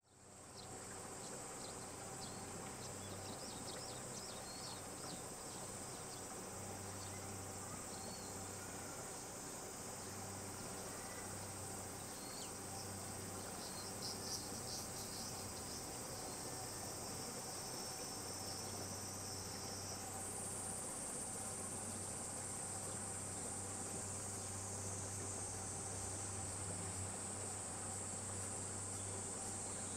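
A steady high-pitched insect chorus that shifts a little higher about two-thirds of the way through, with a few short chirps over it.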